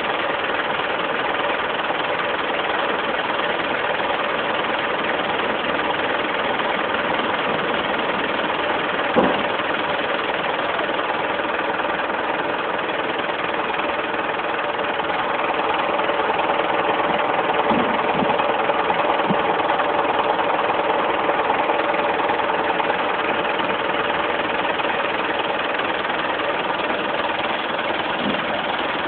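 Parked refrigerated box truck running steadily at idle, a continuous engine drone that swells a little in the middle, with one brief click about nine seconds in.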